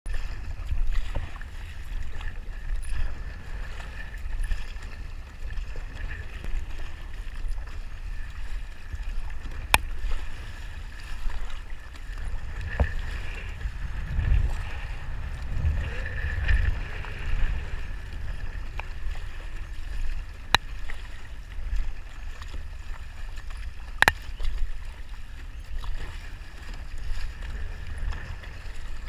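A kayak being paddled on a river: water splashing and sloshing with each paddle stroke over a low wind rumble, with three sharp clicks spread through.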